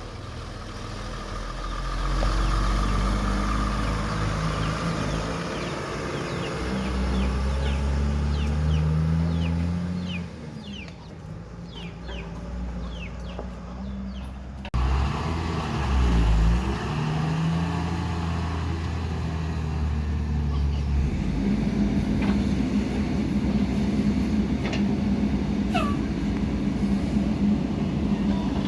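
Diesel engine of a backhoe loader working under load, its revs rising and falling repeatedly. About halfway through it breaks off abruptly and starts again, settling into a steadier, heavier drone in the last third.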